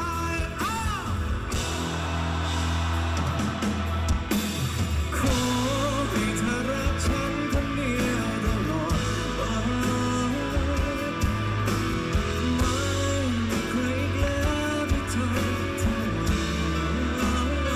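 A rock song playing, with guitar and a steady bass line; a sung melody comes in about five seconds in.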